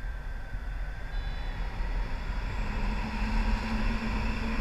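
Wind rushing and buffeting over the camera's microphone on a paraglider in flight, a steady low rumble. A low steady hum joins about two and a half seconds in.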